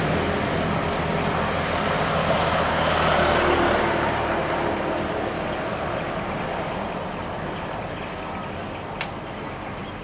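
Intercity coach's diesel engine and tyre noise fading as the coach drives away down the road, with a car following behind. A brief sharp click about nine seconds in.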